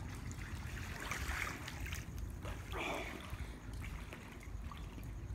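Swimming-pool water lapping and splashing lightly around a swimmer, with a few soft swells of splashing about a second in and again about three seconds in.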